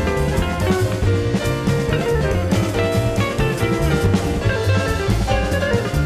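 Live jazz-fusion band playing, with drum kit and guitar over sustained keyboard notes, heard from a cassette-tape recording of an FM radio broadcast.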